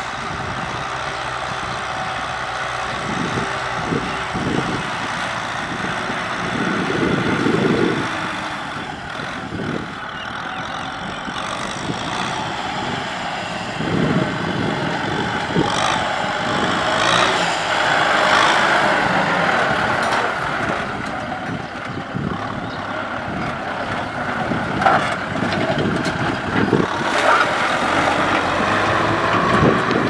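Kubota M6040SU tractor's diesel engine running steadily under load as it pulls a disc plough through the soil.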